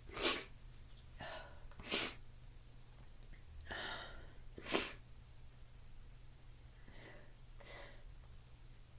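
A woman's short, sharp sneezes: three quick bursts about two seconds apart, with quieter breaths between them and a few faint breaths near the end.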